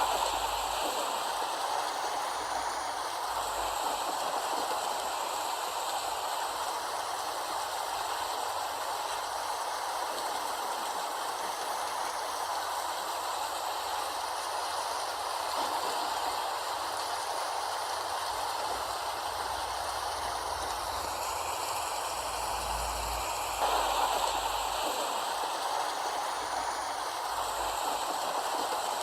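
Steady rain falling, a continuous even hiss that briefly gets a little louder about two-thirds of the way through.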